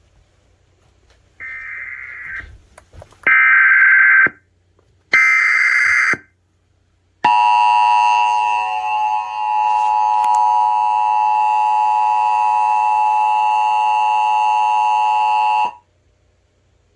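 Emergency Alert System header: three short bursts of screeching data tones about a second each and a second apart, the first quieter, then the steady two-tone EAS attention signal held for about eight seconds before cutting off abruptly. It signals the start of a new emergency alert.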